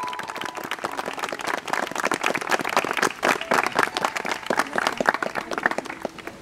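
A small crowd of guests applauding, with dense clapping that eases off a little near the end.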